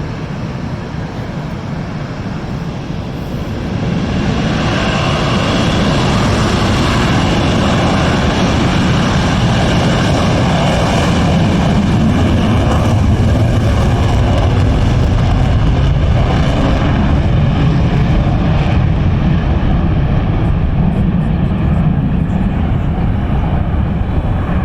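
Jet engines of F/A-18 fighter jets running loud at takeoff power, a steady roar with a faint whine above it that grows louder about four seconds in and holds.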